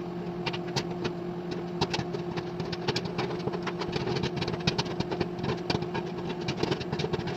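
Microwave oven running with a steady hum while a bag of butter-flavour microwave popcorn pops inside: sharp pops several times a second, coming more thickly in the second half.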